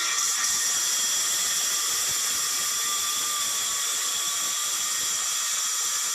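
Circular saw running at a steady, high-pitched whine as it cuts through a board.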